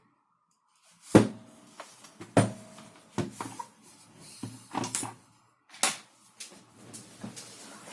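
A series of sharp clacks and knocks from hard objects being handled, about six spread over several seconds, the first two with a brief ringing tone.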